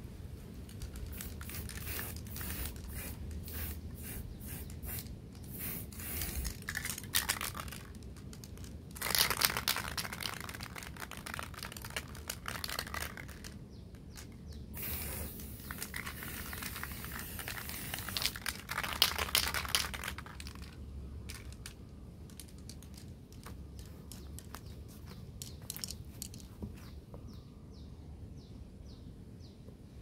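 Aerosol spray-paint can in use: irregular clicks and rustling from handling, with three short hissing sprays.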